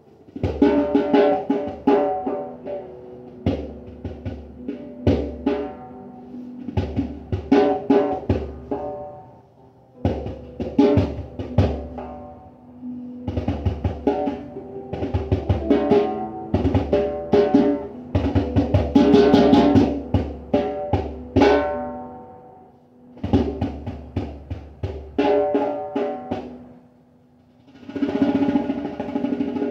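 Hand drum played in phrases of rapid strokes with short pauses between them, pitched tones ringing on after the strokes.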